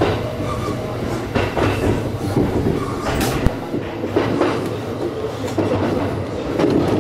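Kintetsu electric train rolling over the points, its wheels knocking irregularly over the switch and rail joints with a steady running rumble beneath, heard from inside the front of the train.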